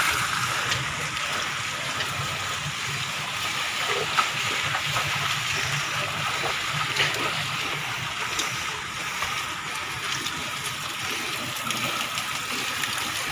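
Water running and gurgling steadily as it wells up from ground cracked open by the earthquake.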